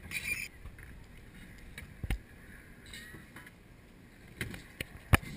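Quiet skatepark background with a few scattered sharp clacks of riders on concrete, two of them close together near the end.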